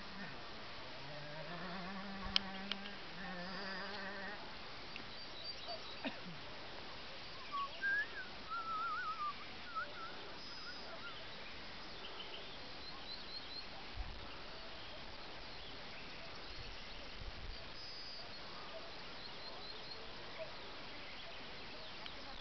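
Meadow ambience at dusk. For the first four seconds an insect buzzes close by with a wavering drone. Around the middle a bird chirps and warbles, with scattered faint high calls over a steady background hiss.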